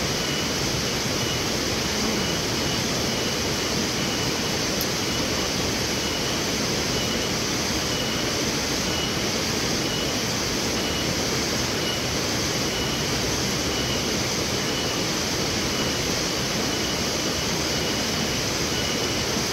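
Steady rushing noise that never changes, with a faint high chirp near 3 kHz repeating at short intervals throughout.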